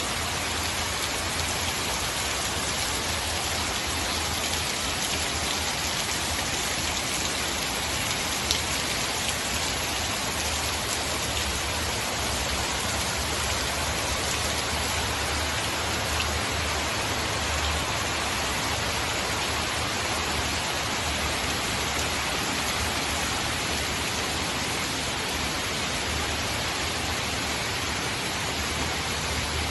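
Heavy rain falling steadily: a dense, even hiss with a low rumble underneath and one brief sharp tick about eight seconds in.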